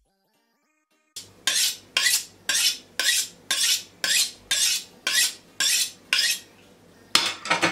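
Chef's knife being honed on a steel rod: about a dozen quick metallic scraping strokes, about two a second, starting about a second in.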